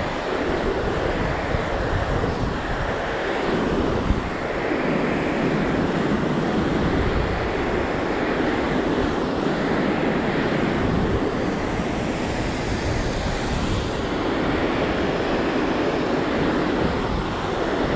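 Wind buffeting the microphone over a steady rush of river water, swelling and easing every couple of seconds.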